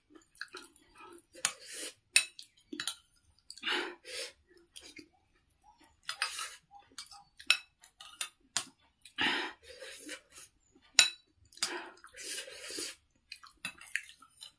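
Metal spoon and fork clinking and scraping against a ceramic soup bowl in short separate strokes, mixed with close-up chewing and eating mouth sounds of noodle soup.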